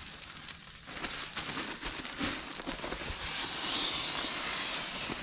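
Nylon fabric of a sleeping bag and its stuff sack rustling and crinkling as they are handled, with many small crackles. The rustle grows into a stronger, hissing swish over the last couple of seconds.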